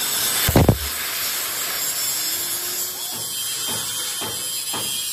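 Metalworking in a workshop: a steady hiss with one loud knock about half a second in and several lighter knocks in the second half.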